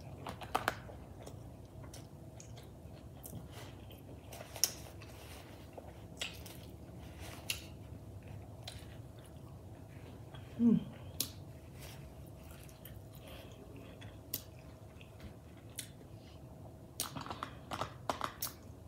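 Close-up chewing and wet mouth clicks from someone eating a lettuce-wrapped burger. A short hummed 'mm' comes about ten seconds in, and a quick run of clicks comes near the end.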